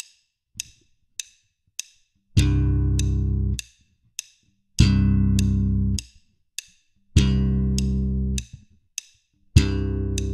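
Electric bass playing slap-bass double stops: a two-note chord on the first beat of each bar, four times, each ringing about a second and then cut off. A metronome clicks at 100 beats a minute throughout, with four clicks alone before the first chord.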